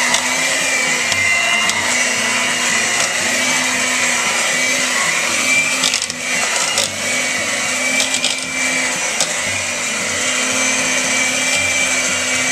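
Electric hand mixer running steadily, its beaters churning thick mashed potatoes in a metal pot, with a steady motor whine. A few sharp clicks come about halfway through.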